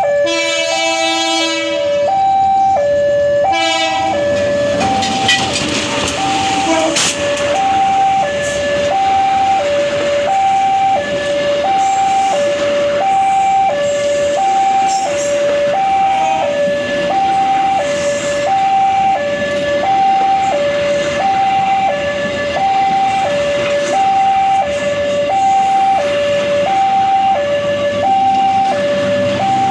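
Railway level crossing warning alarm sounding a steady two-tone signal, a higher and a lower note alternating, each pair taking about a second. A train horn blows at the start and stops about three and a half seconds in. Then a passenger train runs over the crossing, its wheels rumbling on the rails with a few sharp clicks.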